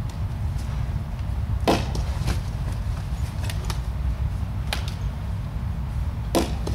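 Baseballs knocking sharply against a wall and into catchers' mitts during a wall-ball reaction drill: two loud knocks, one about a second and a half in and one near the end, with a few fainter clicks between, over a steady low hum.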